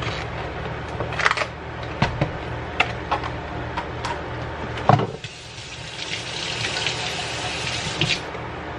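Several light clicks and knocks from handling a carton and a glass blender jar. Then a kitchen faucet runs into a stainless steel sink for about two and a half seconds and is shut off.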